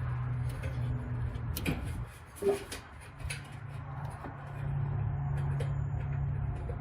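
Scattered clicks and knocks of parts being handled inside an electric dryer's cabinet, with one sharper knock about two and a half seconds in, over a steady low hum.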